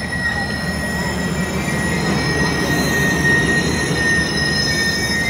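Union Pacific passenger cars rolling past at close range: a steady rumble of steel wheels on the rails with a sustained high-pitched squeal from the wheels over it.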